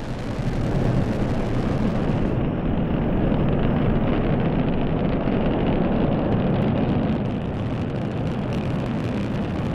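Loud, steady roar of a Delta IV Heavy rocket's three liquid-fuelled booster cores at full thrust, climbing away just after liftoff.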